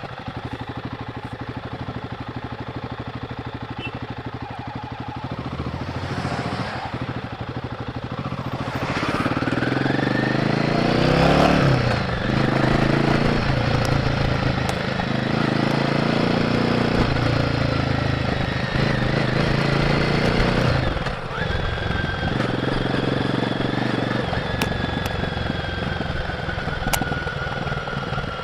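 Royal Enfield Guerrilla 450's single-cylinder engine on its stock exhaust, running low and steady at first, then revving up as the bike accelerates through several gear changes, its pitch climbing and dropping back at each shift. About two-thirds of the way through the throttle eases off and the engine settles into a steady cruise with a thin high whine above it.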